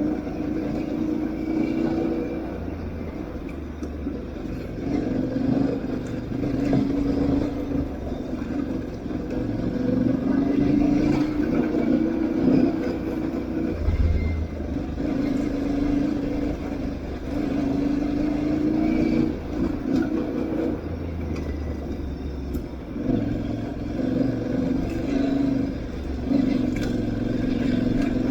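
Aprilia Tuareg 660's parallel-twin engine running under a rider off-road, its pitch rising and falling in stretches of a few seconds as the throttle opens and closes. Occasional short knocks and clatter run over the engine sound.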